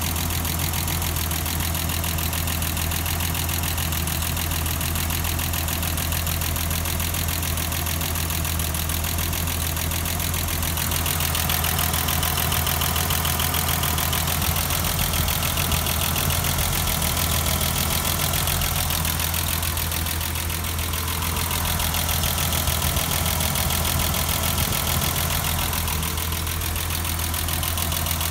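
BMW M20B25 2.5-litre straight-six running at a steady idle, a continuous even hum, a little louder from about eleven seconds in.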